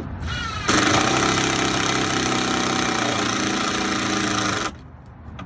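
Power drill spinning up with a rising whine, then running loud and steady under load for about four seconds as it drives a deck fastener, stopping abruptly near the end.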